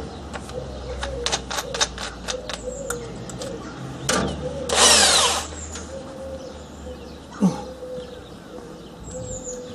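Power drill running for about a second, driving a screw home, after a run of small clicks and knocks from parts being handled.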